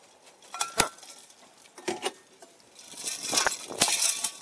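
A handful of sharp knocks and clunks, about four spread over a few seconds, from someone moving about on a fiberglass boat deck. A scuffling hiss joins the last two knocks near the end.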